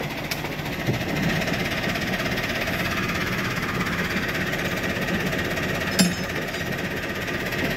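Tractor's diesel engine idling steadily close by, a rapid, even knocking run, with a single sharp knock about six seconds in.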